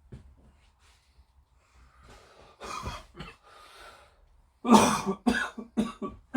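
A man coughing: a couple of short coughs, then a fit of five or six loud coughs in quick succession near the end.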